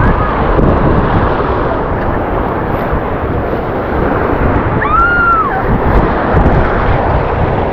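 Wind buffeting the microphone over waves washing and breaking on the rocks of a seawall, a steady loud rush. About five seconds in, a single short high call rises and falls.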